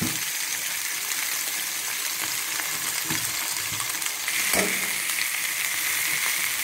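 Diced mixed vegetables sizzling steadily in hot mustard oil in an aluminium kadai, just added and being stirred with a slotted spoon. A sharp metal knock comes about four and a half seconds in.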